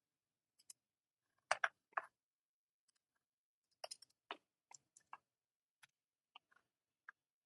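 Faint, irregular clicks and taps of a computer keyboard and mouse in use, about a dozen over several seconds, some in quick pairs, as text is pasted into a file.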